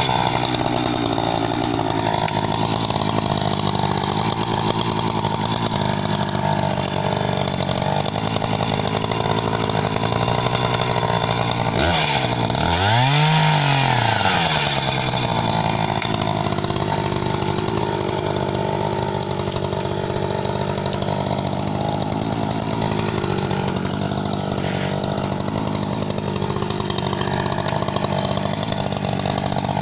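Echo CS-590 Timber Wolf two-stroke chainsaw running at high speed, cutting through a log. About twelve seconds in, the engine revs up and drops back once.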